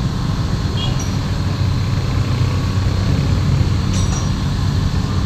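Heavy diesel engine running steadily with a low rumble, with two short high-pitched squeaks, one about a second in and one about four seconds in.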